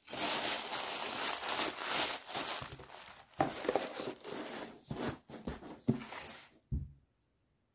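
Tissue paper crinkling and rustling as it is folded over jewellery in a cardboard box. In the second half come a few short knocks, the heaviest near the end, as the lid goes on and the box is set down on a wooden table.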